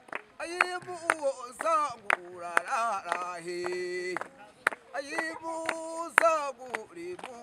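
A man singing or chanting, his voice sliding between notes and holding some of them, with about a dozen sharp clicks between phrases.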